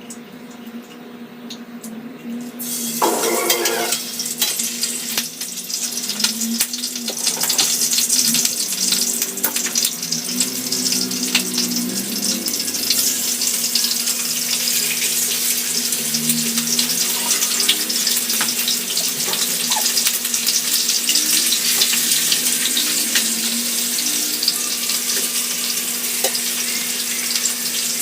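Water running from a tap into a sink, turned on about two and a half seconds in and then flowing steadily, with a splashing crackle.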